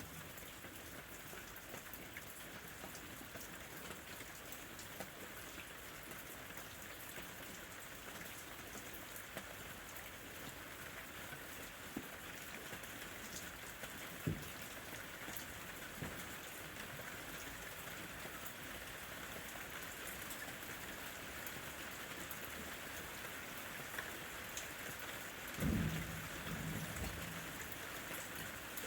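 Steady rain falling, with the odd sharp tap of a drop and a short, low rumble of thunder near the end.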